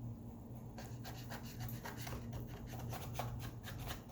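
Knife sawing through a raw salmon fillet on a cutting board, with quick back-and-forth scraping strokes starting about a second in.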